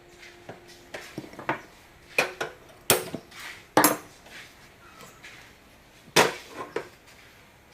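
Kitchen utensils and cookware knocking and clanking in an irregular series of sharp hits, the loudest about three, four and six seconds in.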